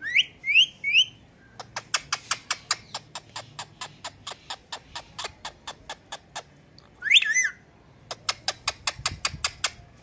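Indian ringneck parakeet calling: three quick rising whistles, then a fast run of short, sharp clicking notes, about six a second, for some five seconds. About seven seconds in comes one harsher call, then another quick run of clicks.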